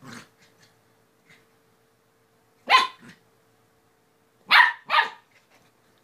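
Puppy giving three short play barks while wrestling with a kitten: one a little under three seconds in, then two in quick succession about two seconds later.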